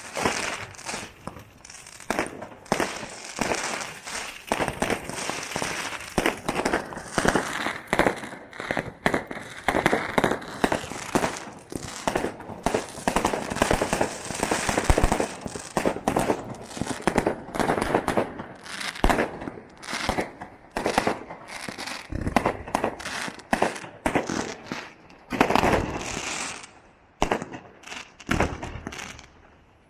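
Fireworks show: a rapid, irregular string of bangs from bursting shells with crackling and fizzing between them, thinning out near the end.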